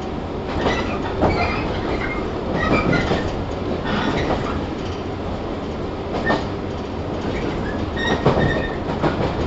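JR 115 series 1000-subseries electric train heard from inside its motor car while running. There is a steady rumble from the running gear, irregular knocks from rail joints, and brief high squeals a little over a second in and again near the end.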